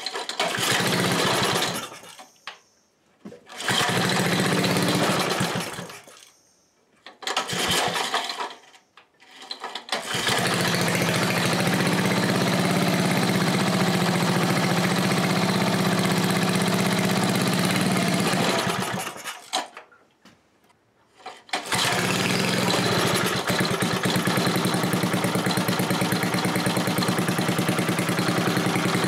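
5-horsepower Briggs & Stratton single-cylinder engine being rope-started after sitting all winter with gas in the tank, primed with carburetor cleaner and on about three-quarter choke. It catches and dies three times in the first ten seconds, then runs steadily for about nine seconds and dies, and about two seconds later it is going again, running steadily to the end.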